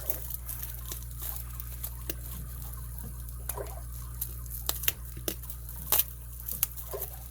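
Scattered small clicks, taps and crinkles of hands handling and unwrapping a packaged padlock, over a steady low hum. The sharpest clicks come about two-thirds of the way in.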